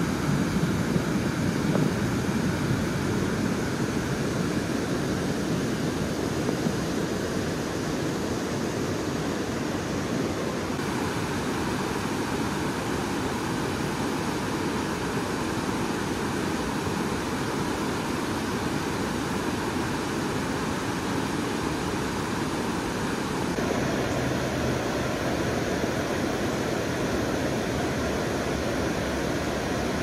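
Saluda River rapids rushing steadily over rocky shoals, a continuous even roar of whitewater whose tone shifts slightly twice.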